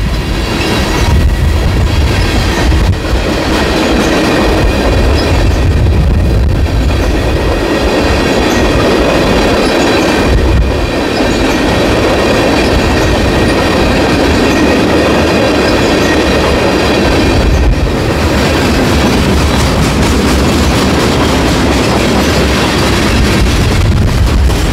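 Canadian National freight train's cars rolling past close by, a steady loud rumble with wheels clacking over rail joints and a thin high ringing from the wheels on the rail.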